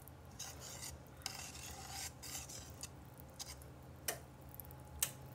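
Wire whisk stirring a runny cassava batter in a metal bowl: soft wet swishing, with a few sharp clinks of the whisk's wires against the bowl.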